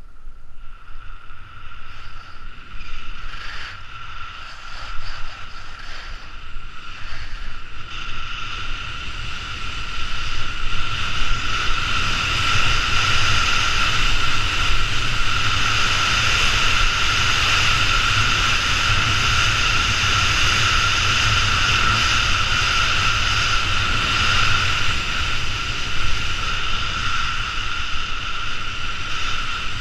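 Skis running down a groomed piste, with a steady hiss and scrape of the ski edges on hard-packed snow and wind rumbling on the microphone. It grows louder about eight to ten seconds in as speed builds.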